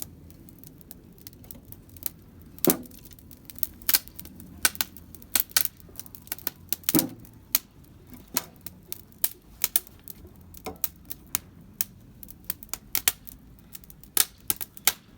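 Wood campfire crackling and popping as it burns, with irregular sharp snaps several times a second, a few louder pops among them, from freshly added larger pieces of wood catching.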